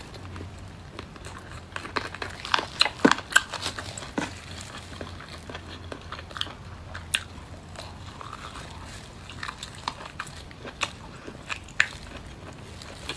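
Mouth sounds of a person biting and chewing roast chicken wings: a quick run of sharp clicks and smacks a few seconds in, then sparser ones.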